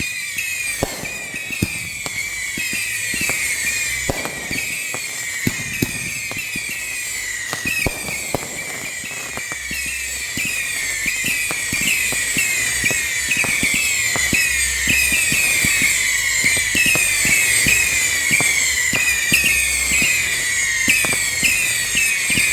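Consumer fireworks going off in a continuous barrage: many overlapping shrill whistles, each falling slightly in pitch, over a rapid stream of cracks and pops. The barrage grows louder over the second half.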